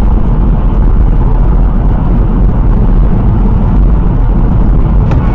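Loud, steady noise of a car cruising at about 80 km/h, as picked up by a dashcam inside the cabin: road and engine noise, heaviest in the low end.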